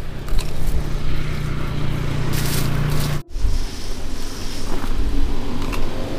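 An engine running steadily with a low hum, cut off abruptly about three seconds in, followed by continued rumbling noise.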